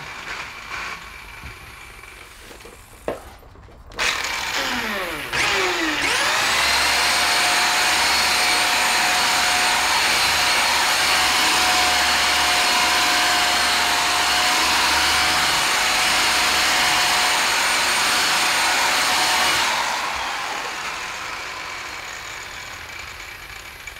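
Milwaukee rotary buffer with a wool pad spinning up about five seconds in with a rising whine. It runs steadily for about fourteen seconds while cutting sanding scratches out of car paint with compound, then is switched off and winds down near the end.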